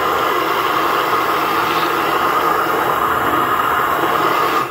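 Electric immersion (stick) blender running steadily inside a glass pint mason jar of egg, mustard and oil, then switched off abruptly at the very end. The batch is failing to emulsify into mayonnaise and stays thin.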